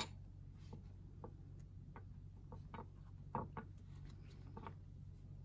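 Faint, irregular light clicks of a crochet hook working yarn, stitching back-loop half double crochet, over a low steady hum.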